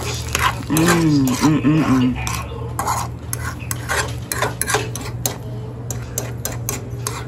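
Metal fork scraping and clicking against a nonstick frying pan as eggs and spinach are scrambled, with eggs frying underneath. About a second in comes a brief wavering hum from a voice.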